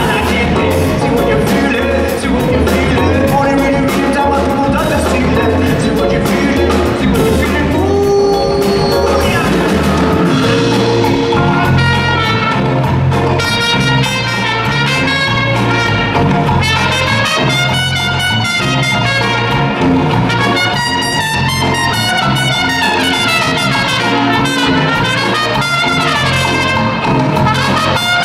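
Live band playing an instrumental passage with drums, bass, acoustic guitar and keys. A trumpet takes the lead, playing quick melodic runs through the second half.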